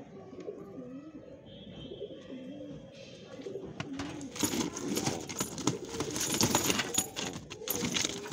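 Satinette pigeons cooing in a low, wavering murmur. From about four seconds in, louder rustling and scuffling joins it as the birds are handled in the wire cage.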